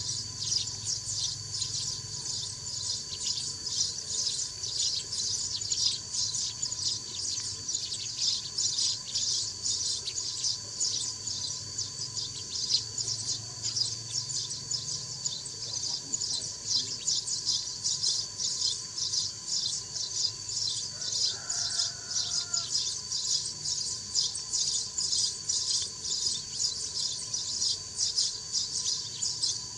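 Sparrows chirping rapidly and continuously, a dense chatter of many overlapping high calls.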